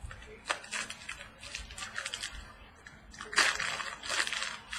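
Trading cards and their plastic packaging being handled, crinkling and rustling in several short bursts, loudest about three and a half to four and a half seconds in.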